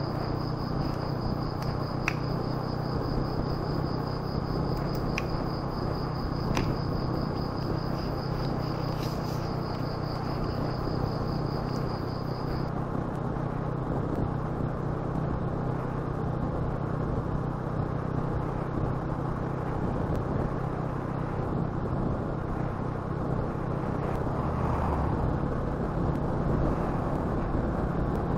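Honda motor scooter engine running steadily at cruising speed, with wind and tyre noise from the road. A thin, steady high tone runs through the first half and cuts off suddenly.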